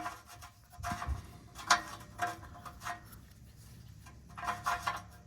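Scattered light clicks, knocks and rubbing from hands connecting parts while fitting a turbo setup, with a dull thump about a second in.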